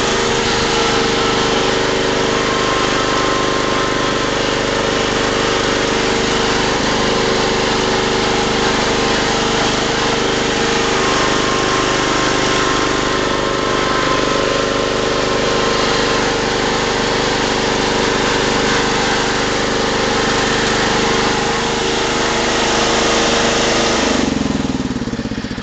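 Lawn tractor engine running steadily at a constant speed, then slowing near the end with its pitch falling.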